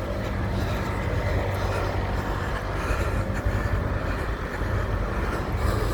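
Steady low rumble with a faint steady hum.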